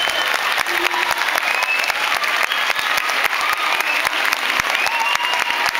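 Large audience clapping steadily, with high shouts and cheers rising over the clapping.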